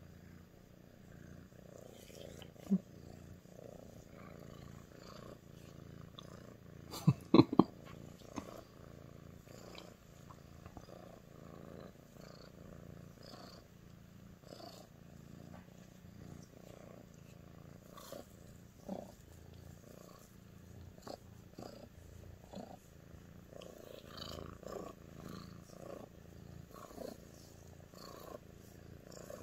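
Sphynx cat purring steadily while being stroked, a low continuous rumble. A brief cluster of loud bumps comes about seven seconds in.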